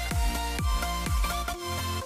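Electronic dance music with a kick drum about twice a second and synth notes; the beat drops out near the end.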